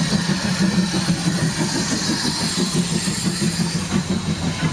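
Small tank steam locomotive working past at low speed, its exhaust chuffing in quick, even beats.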